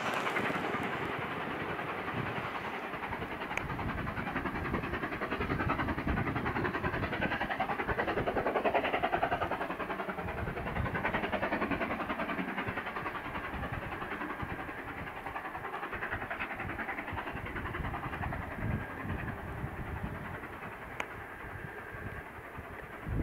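Steam locomotive 70000 'Britannia', a two-cylinder BR Standard Pacific, passing under steam with a rapid exhaust beat, together with the clatter of its coaches' wheels on the rails. The sound is loudest as the engine goes by, then eases as the coaches roll past.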